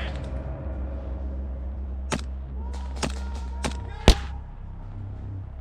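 Airsoft guns firing: four sharp cracks in the middle stretch, the last the loudest, over a steady low background rumble.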